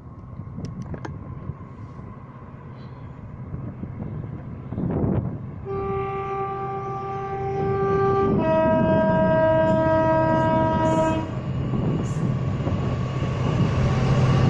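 An approaching train sounds its two-tone horn: a lower note for about two and a half seconds, then a higher note for about three, while the rumble of the train builds louder.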